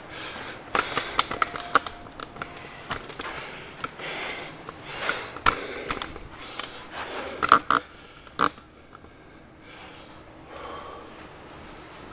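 Clicks, knocks and scraping of a phone camera on a tripod being handled and set down on the floor, with two sharper knocks about seven and a half seconds in; after that it quietens to faint room tone.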